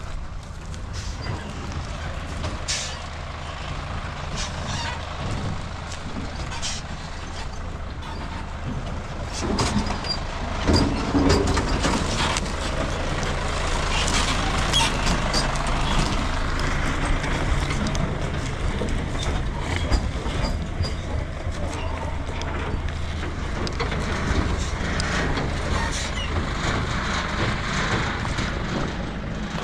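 A truck engine running as the vehicle drives, with rattles and knocks over it; it gets louder about ten seconds in.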